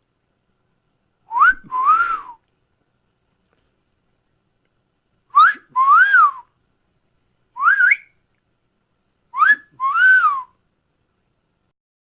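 Wolf whistles (catcalls), four in all. Three are the classic two-part call: a quick upward swoop, then a longer rise-and-fall. The third, a little before the 8-second mark, is a single short rising whistle.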